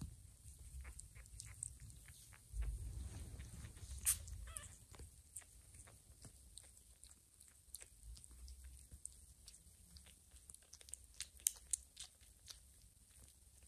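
Soft wet licking and suckling sounds from a mother cat grooming her nursing kittens: a steady scatter of faint clicks and smacks, with a low rumble swelling for a couple of seconds early on and one sharper click in the middle of it.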